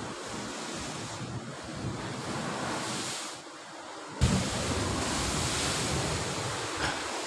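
Sea waves washing against rocks, with wind buffeting the microphone. About four seconds in there is a sudden thump, and a louder surge of water follows.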